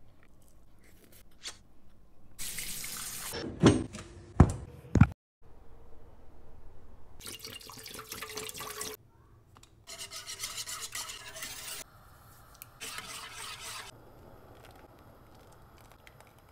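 Water poured from a plastic bottle into a cooking pot, heard in several separate spells of splashing lasting one to two seconds each. About four seconds in come three sharp, loud knocks.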